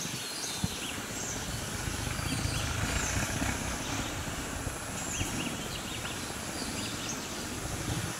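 Outdoor bush ambience: birds chirping in short repeated high calls over a steady high insect buzz, with a continuous low rumble underneath.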